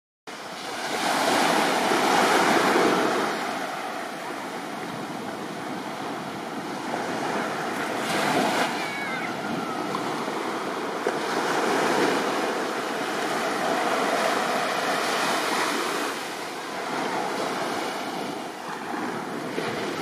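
Small waves breaking and washing up on a sandy beach, the surf swelling and ebbing every few seconds.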